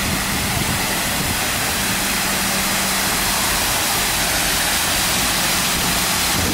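Spherical dandelion-style fountain spraying, a steady loud rush of water splashing down into its basin.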